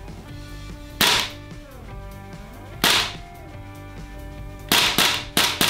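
Tokyo Marui M4A1 MWS gas blowback airsoft rifle firing on weak gas, each shot a sharp crack of the bolt cycling with a strong kick. Two single shots come about two seconds apart, then four in quick succession near the end.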